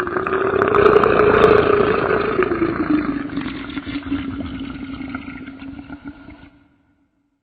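Rhedosaurus monster roar sound effect: one long, drawn-out roar that rises in pitch, holds, then sinks lower and slowly fades out, with a dull, muffled tone.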